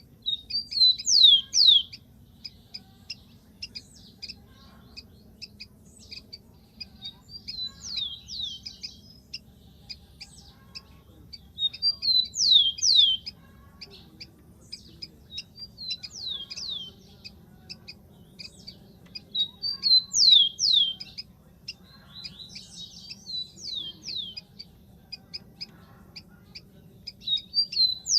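Rufous-collared sparrow singing: a short phrase of quick downward-sliding whistled notes, repeated about every four seconds, with faint rapid ticking between phrases.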